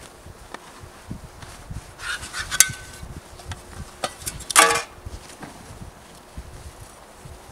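Gear being unpacked from a nylon backpack: fabric rustling with scattered knocks and clicks, and a louder metallic scrape with a short ring about four and a half seconds in as metal camp gear is drawn out.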